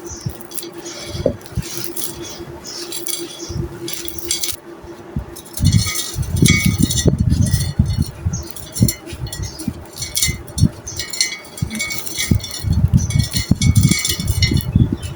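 Lumps of stone-textured crumbling clay breaking apart in crackly, gritty clicks, with heavier crunching bursts about halfway through and again near the end.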